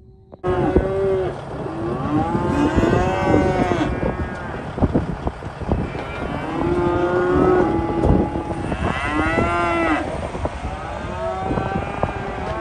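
A group of cattle bawling, many long overlapping moos one after another, starting suddenly just after the start.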